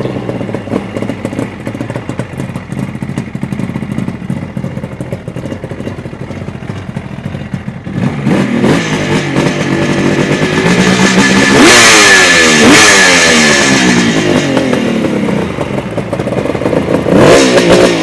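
1972 Kawasaki H2 750's three-cylinder two-stroke engine idling, then revved repeatedly from about eight seconds in, its pitch sweeping up and down with each throttle blip. It is loudest around twelve seconds in and again near the end.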